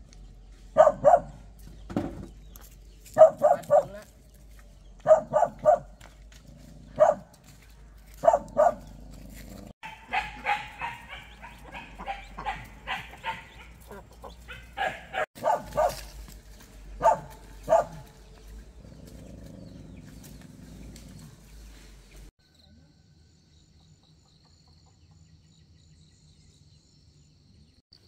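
A dog barking repeatedly in short runs of two or three barks, with a faster, denser run of barking in the middle; the barking stops near the end.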